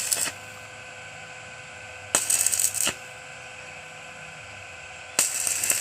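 Electric arc from a mini inverter welding machine spot-welding a water pump motor's armature, which has worked loose: three short crackling bursts, each under a second, over the welder's steady hum.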